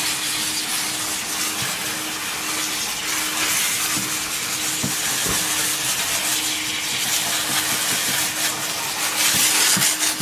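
Steady hiss of a hydrobath dog-wash spraying water, with a steady machine hum beneath it. Near the end it gets louder, with rubbing against the microphone.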